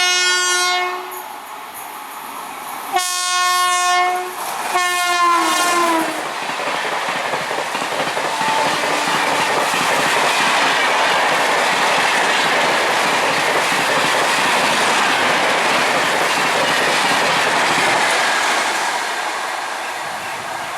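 Passing train sounds its horn three times: a blast of about a second, then two more close together, the last dropping in pitch as the train goes by. After that comes the steady noise of the train running past, which eases off near the end.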